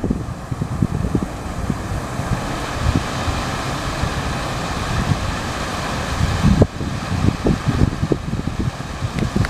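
Wind buffeting the phone's microphone in uneven low rumbles, over a steady rushing hiss that cuts off abruptly about two-thirds of the way through.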